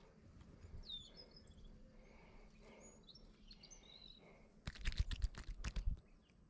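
Faint bird chirps over a low outdoor background, then, near the end, a rapid run of loud knocks and scuffs for about a second: handling noise as the caught sunfish is grabbed in hand.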